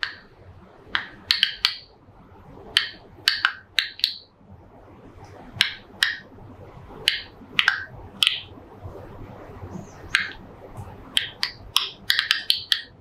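Ultrasonic clicks recorded from grapevines under stress, shifted down into the hearing range and packed close together. They come as a string of sharp, irregularly spaced clicks like popcorn popping, and they crowd together near the end.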